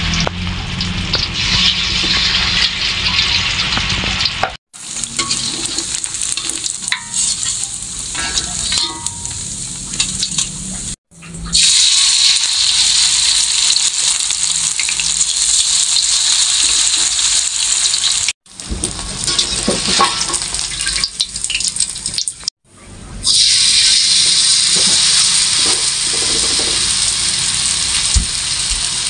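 Vegetable fritters (bakwan) deep-frying in hot oil in a wok: a steady sizzle that drops out abruptly four times and comes back.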